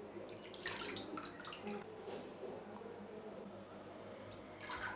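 Faint splashing of water poured from a small steel pot into a bowl of thin gram-flour and buttermilk batter, then a hand swishing through the batter to mix it in.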